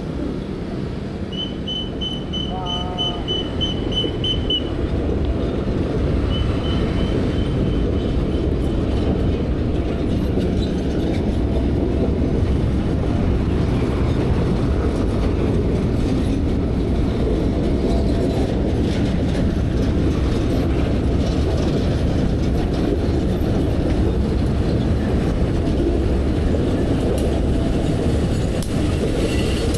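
A diesel-hauled train passing close by on the track: a loud, steady rumble of engine and wheels that builds over the first few seconds and holds. In the first eight seconds a rapid, high-pitched beeping sounds in two runs.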